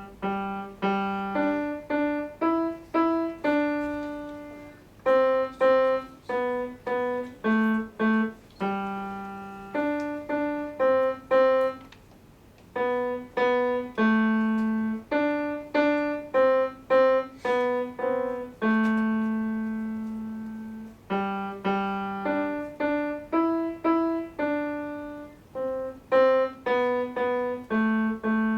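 Solo piano playing a simple melody of single notes, each struck and left to die away, with a few longer held notes and a brief pause about twelve seconds in.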